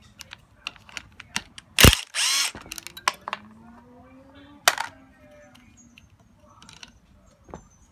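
Hand-held power tool with a long socket running on the solenoid terminal nut of a gear-reduction starter. There is a loud clack a little under two seconds in, then a short whirring run, then a slower rising hum that ends in a sharp click nearly five seconds in. Light metallic clicks of small parts and the socket come in between.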